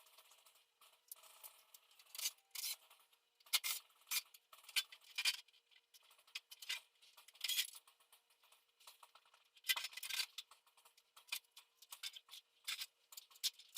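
Irregular clicks, light clinks and rubbing of small hard objects being handled, with a few louder knocks among them.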